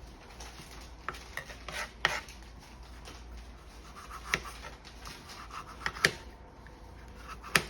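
Irregular knife taps and scrapes on a cutting board as a bell pepper is seeded and cut, with a sharp knock now and then.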